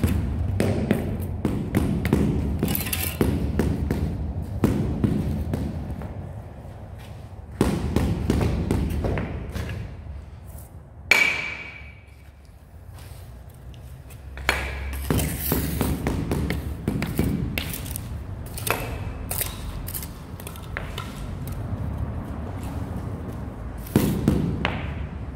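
Irregular thuds and taps as large floor tiles are knocked down and levelled into the mortar bed, with one sharp ringing ping about eleven seconds in.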